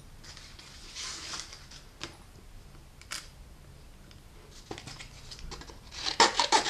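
Light handling of paper and thin metal cutting dies on a desk: a soft paper rustle about a second in and a single click about three seconds in, then a quick run of scissor snips through paper near the end.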